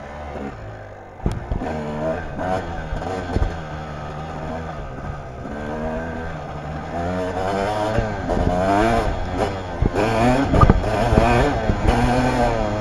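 Kawasaki dirt bike engine revving up and down as it is ridden over a dirt trail, the pitch climbing and falling over and over. A few sharp knocks cut in, the loudest about two-thirds of the way through.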